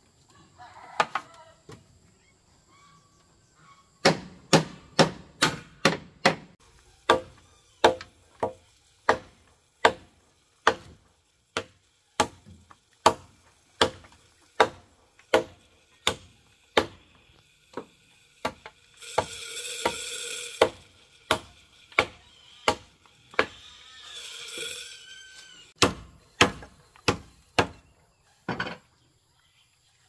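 A machete chops into a thick bamboo pole again and again, blows of wood on blade coming about two a second and thinning out towards the end. Twice in the middle a longer, higher-pitched rasping sound comes between the blows.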